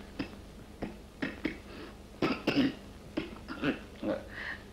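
A sick man in bed coughing and clearing his throat, in a string of short separate coughs.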